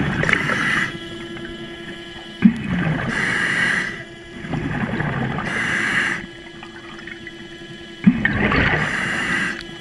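A scuba diver breathing through a regulator underwater: loud gurgling rushes of air and exhaled bubbles about every two seconds, four in all, over the steady motor whine of an underwater scooter.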